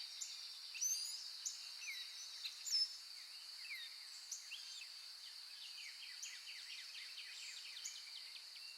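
Many birds chirping and calling, with quick sweeping chirps throughout, over a steady high-pitched drone.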